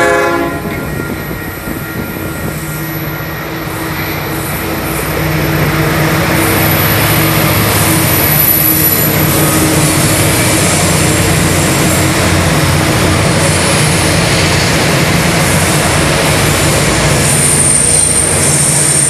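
Coal train hauled by NSW 82 class diesel-electric locomotives passing at close range, engines running with a steady deep drone that grows louder about five seconds in as the locomotives come alongside. A horn note dies away in the first second.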